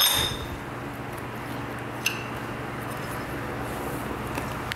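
A small metal sewing-machine slide plate set down with a ringing clink, then a lighter metallic click about two seconds later, over a steady low hum.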